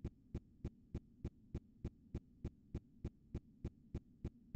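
Faint, evenly spaced clicking, about three clicks a second, over a steady low hum.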